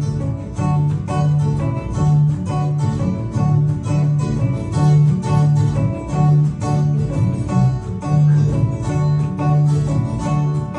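Instrumental break in a country song: acoustic guitar and other plucked strings over a steady bass beat, without singing.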